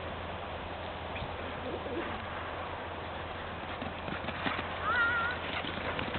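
Rhythmic footfalls thudding on turf over a steady low rumble, thickest in the last two seconds. About five seconds in, a short whistle-like call rises and wavers.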